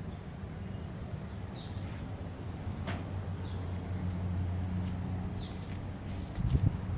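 A bird repeating a short, high, downward-sweeping chirp about every two seconds, over a steady low rumble that swells in the middle. A low thump sounds near the end.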